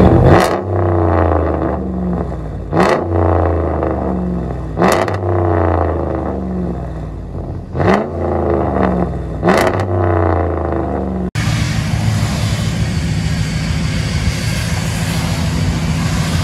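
A Ram 1500's 5.7 L Hemi V8 through a straight-piped dual exhaust with mufflers and resonators deleted, heard at the tailpipe: idling, with five quick throttle blips that each rev up sharply and fall back to idle. About eleven seconds in it cuts abruptly to a steady rumble as the truck moves.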